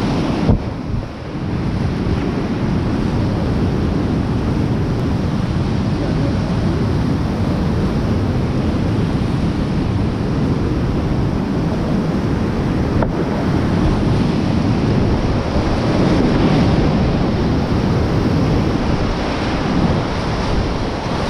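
Whitewater rapids rushing and splashing around a kayak, the river at about 600 cfs, with water spray and wind buffeting the camera's microphone. The sound dulls briefly about a second in, and there is one sharp click a little past halfway.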